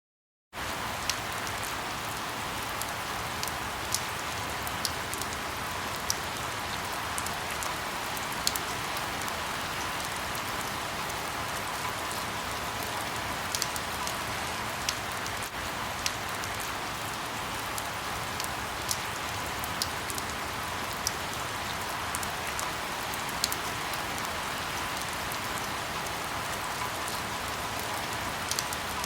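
Steady rainfall, an even hiss of rain with scattered sharper drip ticks of individual drops hitting a surface.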